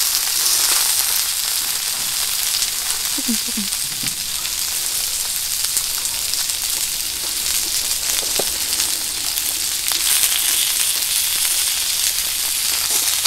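Beef short ribs sizzling steadily in a carbon-steel frying pan, with a few light pops.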